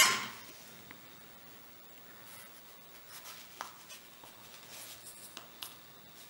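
Small plastic servo parts being handled on a cloth-covered bench: a sharp scrape right at the start, then faint rubbing and a few light clicks.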